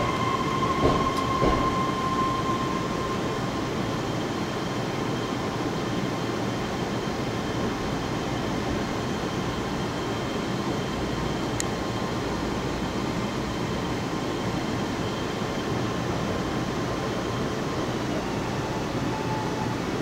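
BART train car running, heard from inside the car: a steady rumble and rail noise, with a high thin whine that fades away about two to three seconds in.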